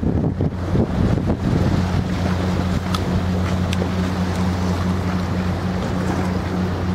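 Boat engine running steadily, a low even hum, with wind buffeting the microphone in the first second or so.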